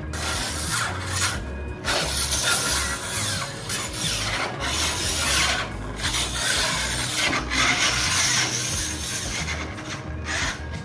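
Angle grinder with a diamond cutting wheel cutting through the aluminum skin of an enclosed trailer: a loud, harsh grinding hiss that drops away briefly several times.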